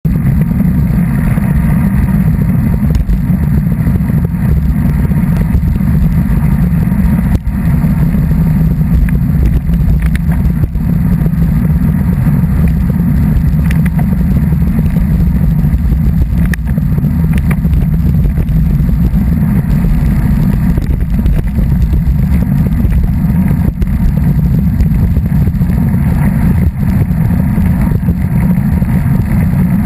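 Steady wind buffeting on a camera microphone moving along a road at speed: a loud, unbroken low rumble.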